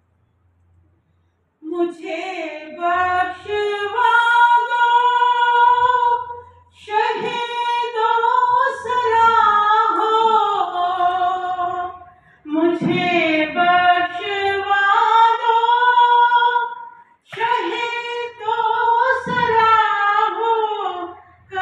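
Woman singing an Urdu naat unaccompanied into a microphone, starting after about a second and a half of quiet. She sings four long phrases with drawn-out, ornamented held notes and short breaths between them.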